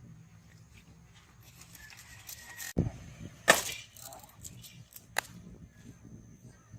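A low thump, then a loud sharp crack about half a second later, and a shorter click about two seconds after that.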